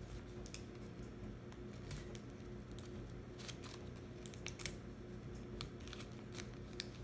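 Folded origami paper crinkling and rustling as hands press and fit the folded pieces together, a run of short crisp crackles that is thickest in the middle.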